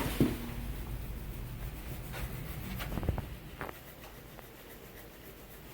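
Graston stainless-steel instrument scraping across the skin to break up post-surgical scar tissue. It makes faint rubbing strokes with a few light ticks and dies down about four seconds in.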